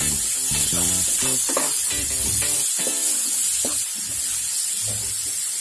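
Bitter gourd slices and chopped tomato sizzling in hot oil in a pan as they are stirred with a wooden spatula, a steady high hiss, with background music playing over it.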